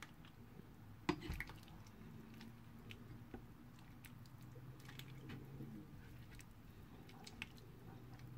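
Ladle scooping vegetables and broth from a pot into a ceramic bowl: soft, wet squishing with a few light clinks, and one louder knock about a second in.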